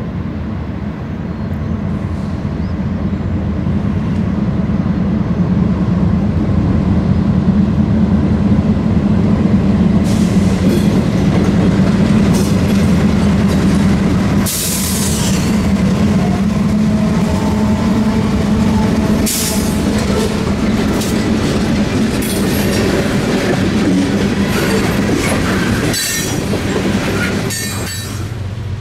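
A group of CSX diesel locomotives rolling past close by, their engines a steady drone that grows louder as they approach. Once the locomotives are by, the train's wheels squeal and screech against the rail in repeated short bursts.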